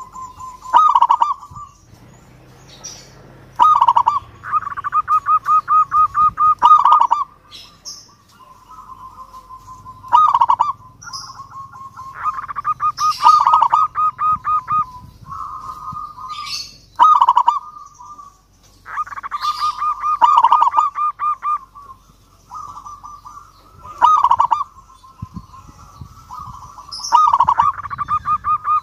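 Zebra dove (perkutut) singing: repeated phrases of rapid trilled cooing notes, each with a louder coo, coming about every three seconds. Short high chirps of other birds sound between the phrases.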